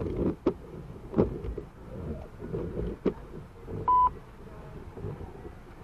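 Storm wind and rain buffeting a car from inside, with irregular knocks and thumps over a low rumble, and one short electronic beep about four seconds in.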